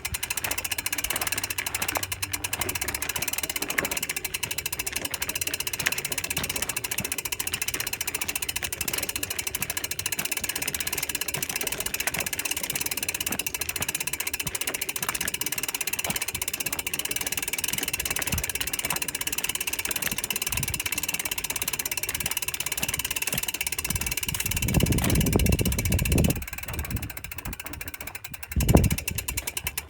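Weapon Fever rear hub's five-pawl freehub buzzing with rapid clicks as the mountain bike rolls and coasts, over a steady rolling hiss. A loud low rumble comes in for a couple of seconds near the end, followed by a sharp thump.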